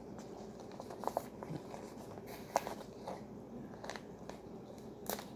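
A foil-lined paper ration pouch being handled and torn open by hand: faint crinkling with a few short, sharp crackles.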